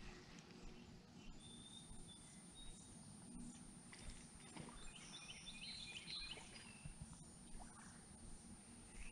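Quiet outdoor ambience with faint bird calls, including a quick run of short repeated chirps about five to six seconds in. A thin, steady high whine starts about a second and a half in.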